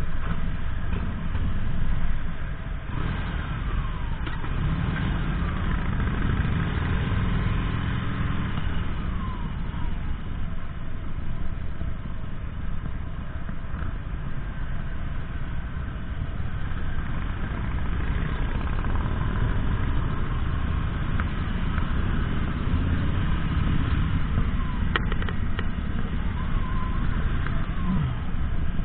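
Harley-Davidson Sportster's air-cooled V-twin running at low road speed, its pitch rising and falling as the throttle opens and closes, with other motorcycles' engines close by.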